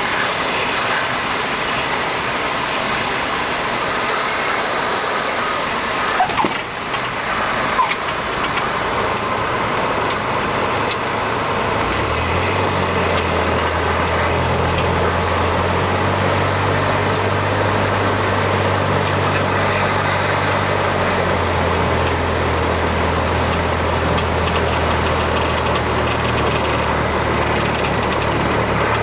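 Cessna 172's four-cylinder piston engine and propeller running under a steady rush of noise. About twelve seconds in, a low steady hum sets in and holds, and a couple of brief clicks come a few seconds before that.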